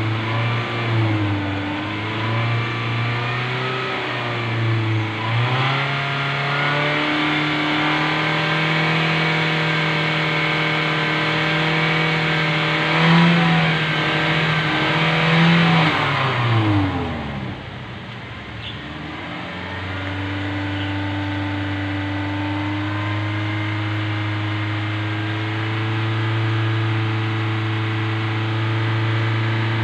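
Toyota Innova engine held at raised revs during an exhaust carbon-cleaning treatment, running smoky. The revs waver at first and are then held higher for about ten seconds. They drop away about halfway through, then climb back and hold steady.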